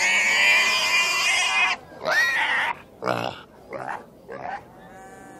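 Pig screaming: one long, loud, shrill scream of about a second and a half, then a shorter squeal and a few short squeals that get quieter.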